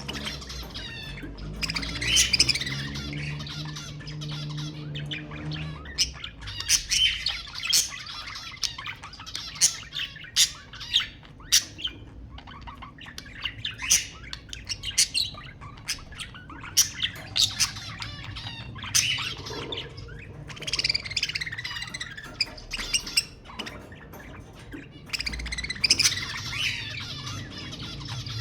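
Budgerigars chattering and warbling, with many short, sharp chirps in quick succession.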